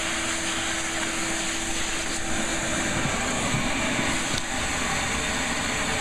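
Shop vacuum running steadily, its hose nozzle sucking up the plastic chips left by routing an opening in an LED sign panel.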